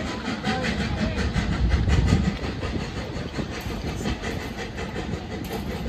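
Kerr Stuart 4388 steam locomotive working hard up an incline, its exhaust beats coming fast and even, about five a second, over a low rumble that swells about two seconds in.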